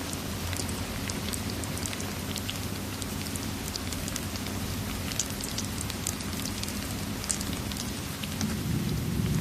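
Steady rain with scattered sharp drop ticks over a low rumble. Near the end, low thunder starts to rumble and grow louder.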